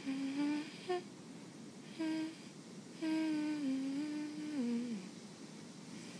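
A girl's voice humming a slow wordless tune in short phrases. The longest phrase starts about three seconds in and steps down in pitch at its end.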